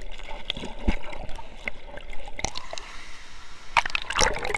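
Canyon stream water heard from underwater: muffled gurgling with scattered short clicks, then a louder rush of splashing near the end.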